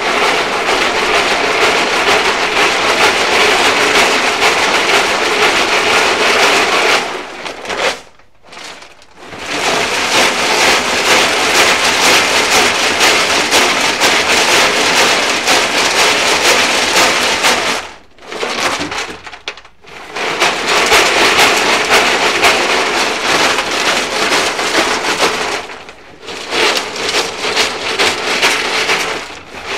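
Gravel tumbling and rattling inside a rusty steel gas tank from a 1965 Ford Falcon van as the tank is rocked back and forth by hand to scour the rust from its inside. The rattle is loud and continuous, with short breaks about 8, 18 and 26 seconds in.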